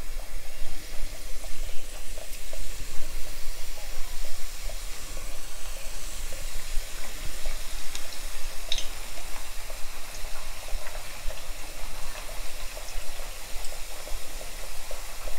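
Puris, rounds of rolled flour dough, deep-frying in oil in a stainless steel pan over a medium-to-low flame, with a steady sizzle and bubbling of the oil around them.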